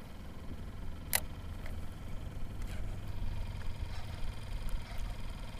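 Steady low rumble of wind and tide-driven water moving around a kayak, with one sharp click about a second in and a few faint ticks after.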